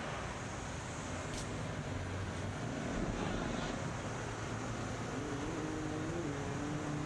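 Dirt bike engine running at low revs, a steady low rumble with a held tone coming in about five seconds in.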